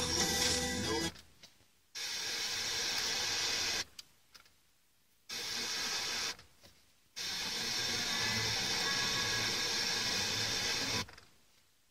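FM car radio being tuned up the band in steps, cutting out for about a second at each retune, three times. Between the cut-outs it plays faint, hissy reception of whatever station sits on each frequency, with some speech.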